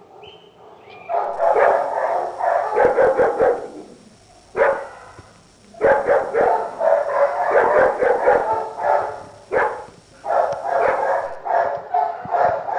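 A dog barking and yipping in rapid runs, in several bouts separated by short pauses.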